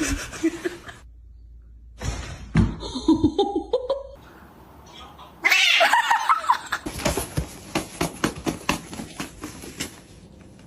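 Domestic cat vocalizing: a drawn-out meow that rises in pitch, then a louder noisy stretch followed by a run of sharp clicks and knocks.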